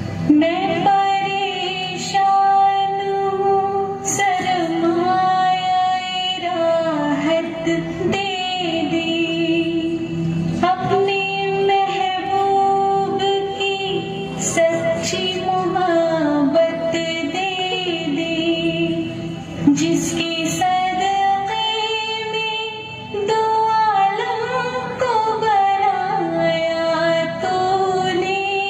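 A devotional dua song: a female voice sings long, drawn-out phrases over instrumental backing.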